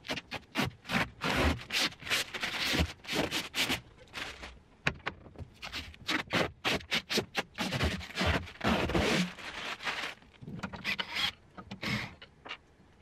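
Plastic panels and aluminium profile parts of a machine enclosure scraping and rubbing in quick, irregular strokes as they are handled and fitted.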